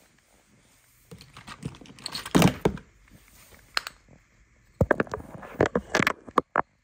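Bursts of rustling, crinkling and clicking handling noise, the loudest about two and a half seconds in and a dense cluster of clicks near the end.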